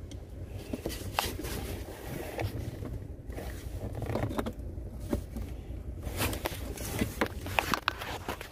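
Short plastic clicks and scrapes as a blue ELM327 OBD-II adapter is worked into the car's diagnostic port under the dashboard, over low handling rumble, with the clicks coming thickest near the end.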